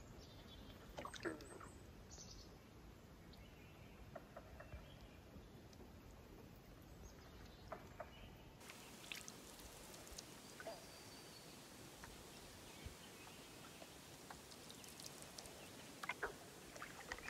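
Near silence: faint outdoor quiet with scattered soft clicks and knocks and a few faint bird chirps.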